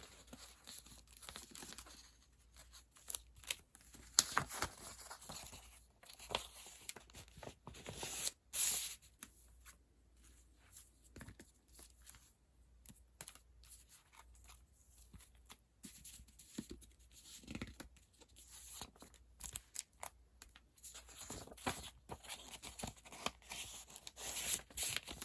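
Paper and plastic packing being handled up close: irregular rustling, tearing and small clicks, with short pauses between handlings.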